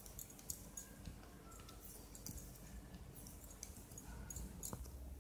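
Faint, irregular clicking of metal knitting needles as stitches are knit off one needle onto the other.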